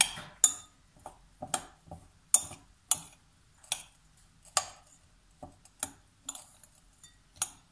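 Metal spoon stirring soaked fine bulgur in a textured glass bowl, clinking sharply against the glass at irregular intervals, roughly twice a second.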